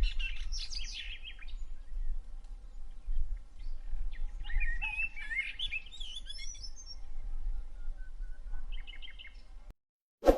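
Small birds chirping and warbling in quick, overlapping phrases over a low wind rumble, which all stop abruptly near the end, followed by one short sharp hit.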